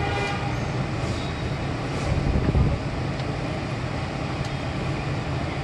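Steady low mechanical hum of outdoor urban background noise, with a brief louder rumble about two and a half seconds in.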